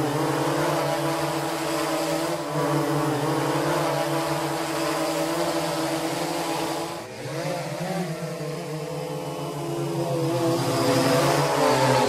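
Quadcopter drone propellers buzzing with a steady hum that dips and then rises again in pitch about seven seconds in, getting louder near the end.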